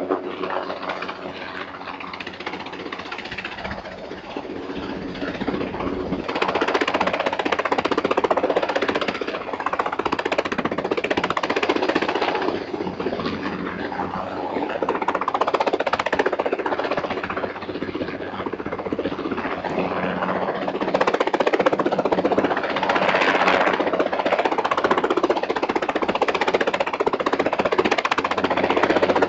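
Helicopter hovering close overhead: continuous rotor chop and engine noise, getting louder about six seconds in and again later on.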